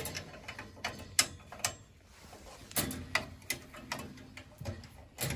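Hand wrenches clicking and tapping against the pilot burner tubing fitting on a boiler's gas valve as the fitting is loosened: a dozen or so irregular sharp metal clicks.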